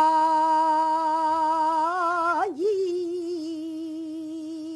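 Pansori singing: a woman holds a long, steady note. About two and a half seconds in it breaks and wavers, and she holds a second note at about the same pitch that slowly grows softer.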